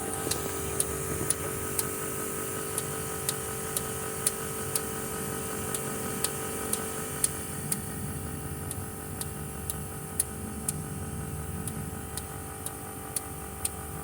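Caterpillar C7 ACERT fuel injector solenoids clicking sharply and evenly about twice a second as the electronic service tool fires them one by one in a solenoid test, over a steady hum.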